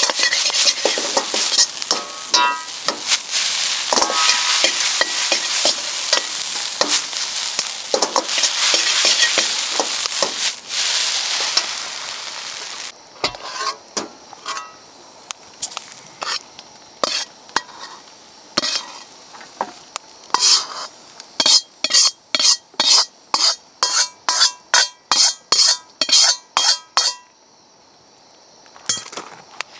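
Fried rice sizzling loudly in an iron wok while a metal ladle scrapes and tosses it, with many clicks. About twelve seconds in the sizzle falls away, and the ladle then knocks on the wok in sharp ringing strikes, near the end in a quick regular run of about two a second.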